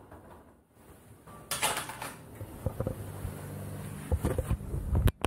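Handling noise from a camera being picked up and moved: a burst of rustling about a second and a half in, then scattered knocks and clicks from fingers and the mount near the end.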